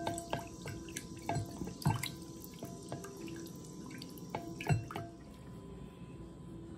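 A metal spoon knocking and clinking against containers while sour cream is spooned out: about six short knocks over five seconds, some with a brief ring, then only quiet room tone.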